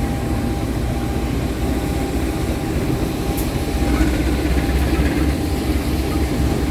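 Two CC201 diesel-electric locomotives in double traction running with a steady heavy low engine rumble as the train rolls slowly past, with a faint thin steady whine over it for the first few seconds.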